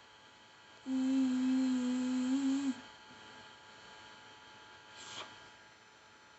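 A person humming one held, steady note for about two seconds. A faint steady background hum runs underneath.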